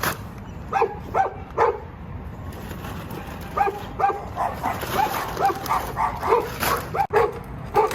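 Short, repeated animal calls, more than a dozen in uneven runs, with a pause of about two seconds early on.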